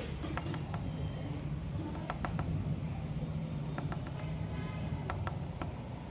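Light, irregular clicks in small clusters, a Persian kitten's claws tapping on a tiled floor as it walks, over a steady low hum.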